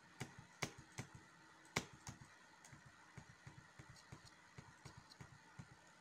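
Near silence with faint, irregular clicks from working a computer, a few sharper ones about half a second in and just under two seconds in.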